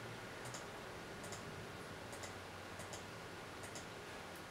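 Faint computer mouse clicks in quick pairs, five times, roughly a second apart.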